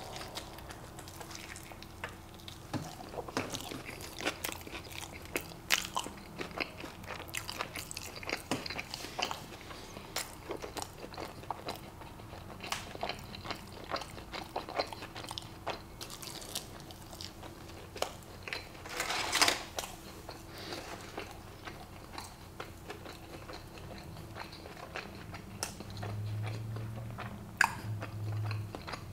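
Close-miked eating: biting into and chewing a carne asada taco in a soft flour tortilla, with many small wet mouth clicks and smacks. One louder noise comes about two-thirds of the way through.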